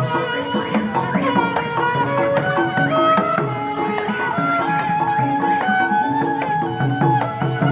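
Betawi ondel-ondel street music: hand drums beating a steady rhythm with a rattle, under a melody line of held, sliding notes.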